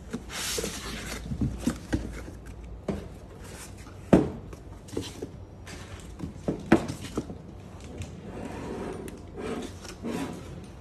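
Unpacking sounds: foam packing inserts and cardboard rubbing and rustling as a metal 8-port SMS modem is lifted out of its box. Small clicks and knocks run throughout, with two sharp knocks about four and seven seconds in as the unit is handled and set on the table.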